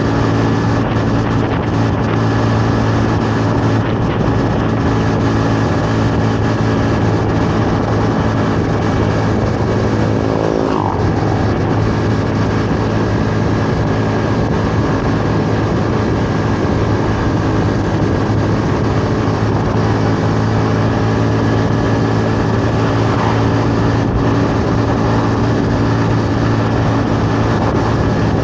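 Honda Navi 110's small single-cylinder four-stroke engine running steadily at cruising speed, mixed with wind and road noise on the rider's microphone. The engine note briefly shifts in pitch about ten seconds in.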